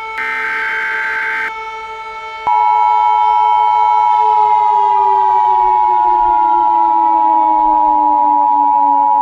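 Emergency Alert System tones. A SAME data header burst, a harsh two-tone buzz, ends in the first second and a half. About two and a half seconds in, the loud, steady two-tone EAS attention signal starts. Under it a civil defense siren holds a steady pitch, then winds down from about four seconds in.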